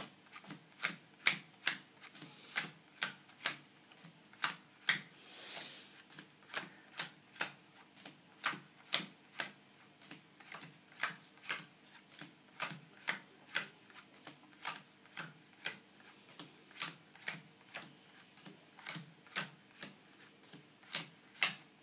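Bicycle Necronomicon playing cards dealt one at a time into four piles on a close-up mat, each card landing with a sharp click, about two or three a second. A brief soft rustle about five seconds in.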